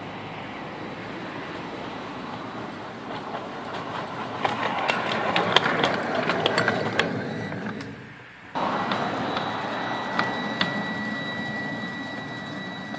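Miniature ride-on locomotive running on a small-gauge track, its wheels clicking sharply over the rail joints as it draws near and passes. After a sudden break about eight and a half seconds in, it runs on with a steady high whine.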